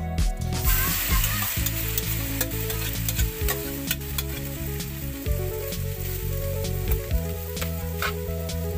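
Shredded young coconut sizzling as it is tipped into a hot wok, starting under a second in, with a metal spatula scraping and clicking against the wok as it is stirred.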